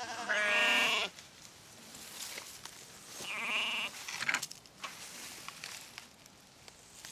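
Sheep bleating twice: a loud call about half a second in, and a second about three seconds later. A few rustles and clicks follow.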